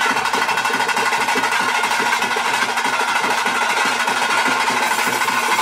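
Fast, continuous drumming from thaase drums, with a steady held note from a reed pipe sounding above it.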